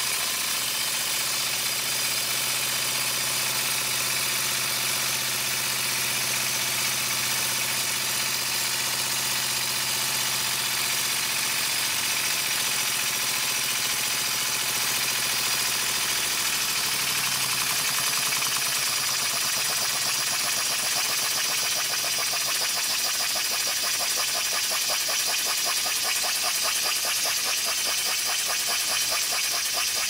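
Small live-steam slide-valve engine running fast, with a steady hiss of escaping steam and rapid, even exhaust beats that grow plainer in the second half. A low hum fades away around the middle. The leaking noise leads the owner to suspect the slide valve isn't seated properly.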